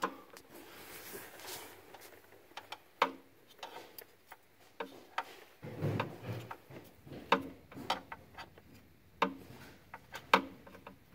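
A 19 mm flex-head ratcheting gear wrench clicking in short swings of a few clicks each, with the clicks irregular and about a second apart, as it works a tight cylinder head temperature sensor loose.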